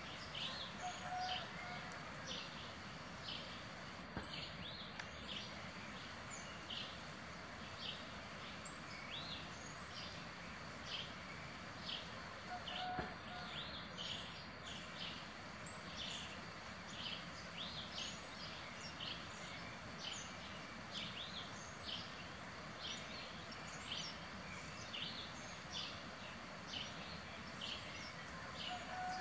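Outdoor ambience: a steady faint hiss, with short high chirps from an unseen small animal repeating more than once a second throughout.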